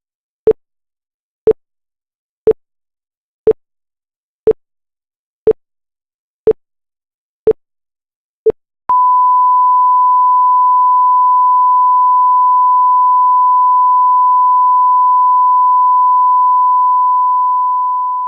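Electronic countdown of short beeps, one a second, followed by a steady single-pitch sine test tone that holds for about nine seconds and fades out near the end: a broadcast sign-off tone marking the channel going off the air.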